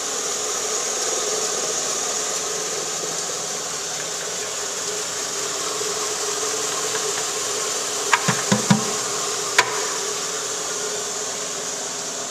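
Kason Vibroscreen circular vibratory separator running under load with a steady mechanical hum and hiss as material is fed onto its screen. About eight seconds in there is a quick cluster of four knocks, and a sharp click about a second later.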